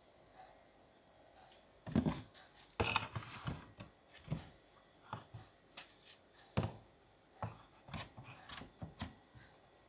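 Woven bamboo rice baskets (ceting) being handled: irregular scratchy clicks, knocks and rustles of the bamboo strips, loudest about two and three seconds in.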